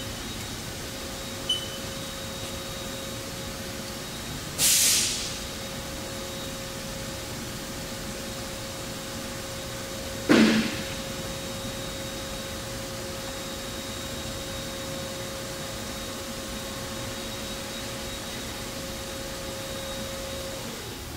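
Haas TL-3 CNC lathe running with a steady hum, with short key beeps from its control panel near the start. A brief hiss comes about five seconds in, and a loud clunk with a short ring about ten seconds in. The hum stops near the end.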